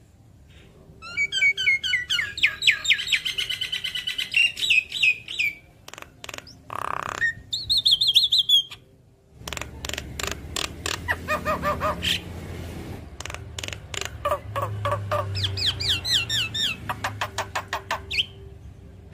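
Javan myna singing: rapid runs of repeated chirping notes and dense clicking chatter in several bursts, with a short break just before the middle.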